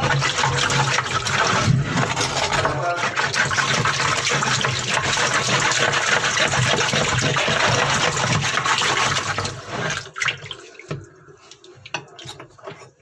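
Water rushing and splashing steadily into a washing machine drum as it is washed out, with a low hum underneath; the rush stops about ten seconds in, leaving a few scattered knocks.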